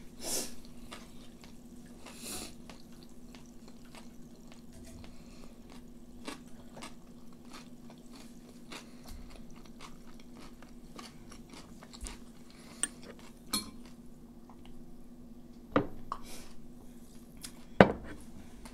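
Eating at the table: quiet chewing and small clicks of chopsticks against a metal pot and plates, with two sharper clinks near the end, over a steady low hum.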